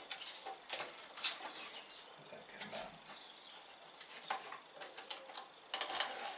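Plastic casing of a battery-powered electric fly swatter being handled and prised apart, irregular small clicks and knocks with a sharper clatter near the end.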